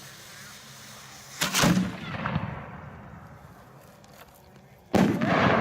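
Two loud booms from aerial firework shells fired from mortar tubes, about three and a half seconds apart, each trailing off in a long echo.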